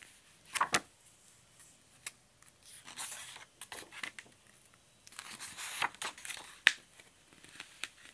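Hardcover picture book being opened and its pages turned: two spells of paper swishing and rustling, with a few sharp clicks from the cover and pages.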